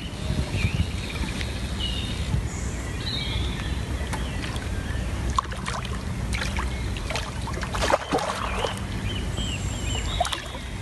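Steady low rumble on open water, with small splashes and clicks in the second half and birds chirping now and then.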